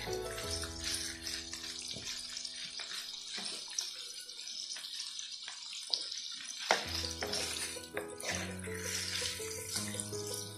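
Sausages sizzling steadily in a frying pan, with a few sharp knocks of the spatula against the pan. Background music plays, dropping out for a few seconds in the middle.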